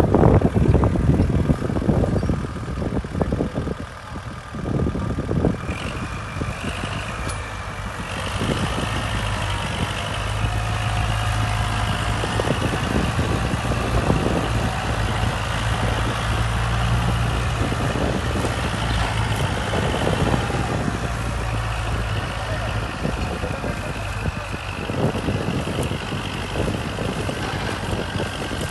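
Diesel engine of a Kubota MU4501 45 hp tractor running steadily under load as it pulls a hydraulic reversible plough through heavy black cotton soil.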